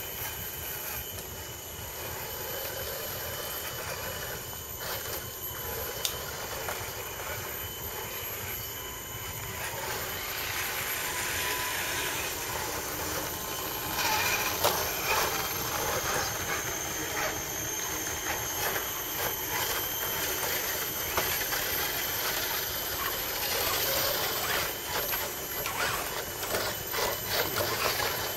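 Scale RC crawler trucks' electric motors and geared drivetrains whining as they crawl over tree roots and dry leaves, with scattered clicks and crunches from the tyres. The sound grows louder about halfway through as the trucks come closer.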